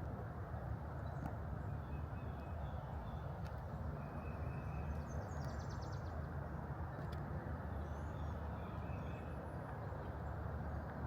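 Faint songbird calls, short chirps with a quick trill about five seconds in, over a steady low rumble, with a few faint clicks.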